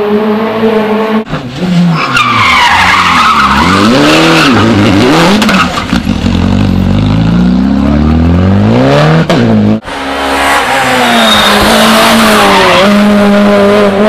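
Rally cars at full effort through a tight bend, one after another: engines revving hard, their pitch falling under braking and downshifts, then climbing as they power out, with tyres scrubbing and squealing on the tarmac. The sound is broken by sharp cuts about a second in and again near ten seconds, with a new car each time.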